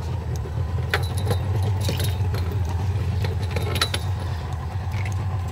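Sharp metallic clinks and rattles, several in quick succession in the first few seconds, over the steady low hum of an idling boat engine.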